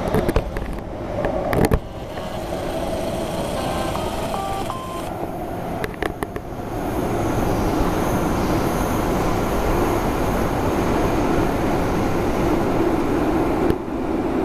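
MTR Kwun Tong Line C-Train leaving the station: its cars roll past with a steady rumble and a few sharp clicks near the start and about six seconds in. The rumble carries on, a little stronger, as the train runs off into the tunnel.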